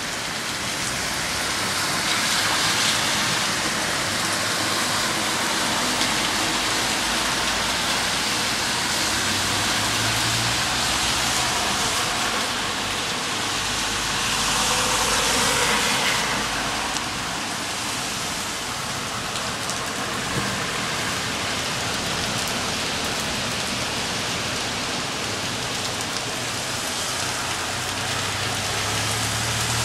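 Heavy rain falling steadily onto a flooded street and the surfaces around it, as an even hiss that swells louder for a couple of seconds about halfway through.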